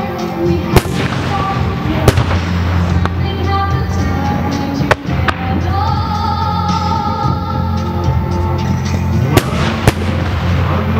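Aerial fireworks shells bursting with sharp bangs, several times, over steady music; the loudest bangs come about a second and two seconds in and as a close pair near the end.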